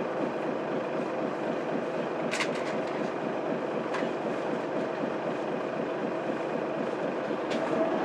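Inside the cabin of a Mitsubishi Fuso Aerostar city bus under way: its 12.9-litre 6M70 diesel engine and road noise run steadily, with a few short rattles and clicks, the first about two seconds in.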